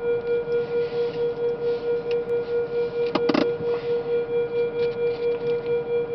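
Drawbridge traffic-gate warning signal: a steady electronic ringing tone pulsing at about four beats a second as the gate arms lower to stop traffic for a bridge opening. A short clatter breaks in a little past the middle.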